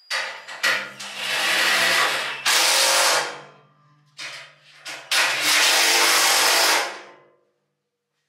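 A cordless driver running in several short spurts and then two longer runs of about two seconds each, driving in the M8 bolts that fix the bandsaw to its stand.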